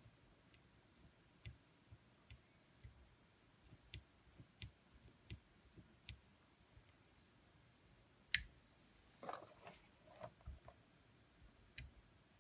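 Faint scattered small clicks, roughly one every half-second to second, with one sharp louder click about eight seconds in. Soft knocks and rustling follow, then another sharp click near the end.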